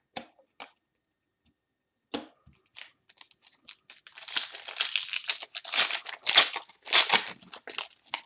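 A 2019-20 Panini Prizm basketball card pack being torn open by hand. A few light ticks come first; then, about three seconds in, its wrapper starts tearing and crinkling in a dense, crackling run that is loudest in the last few seconds.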